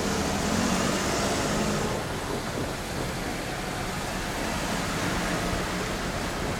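Chuo Line electric train passing close by a level crossing: a steady rushing rumble of wheels and running gear, a little louder in the first two seconds.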